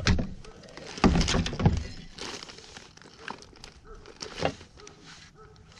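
Knocks and thumps as a freshly caught largemouth bass is handled in a landing net on a kayak. A loud knock opens it, a cluster of knocks follows about a second in, and a few lighter knocks come after.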